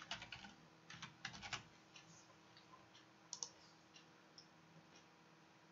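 Faint computer keyboard typing: a quick run of keystrokes over the first second and a half, then a couple more clicks about three seconds in.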